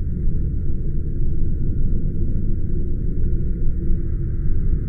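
Ambient sci-fi starship-bridge background sound: a steady low rumbling hum with a faint higher drone above it, unchanging throughout.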